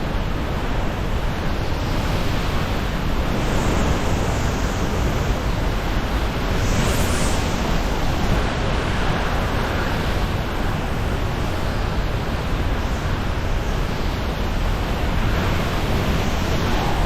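Hurricane-force wind and rain: a loud, steady rushing noise with no let-up.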